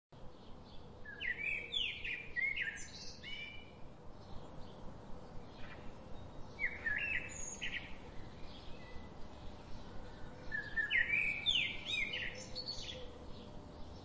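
A songbird singing three bursts of quick, high chirping phrases, each lasting a second or two, with fainter chirps between them over a soft outdoor hiss.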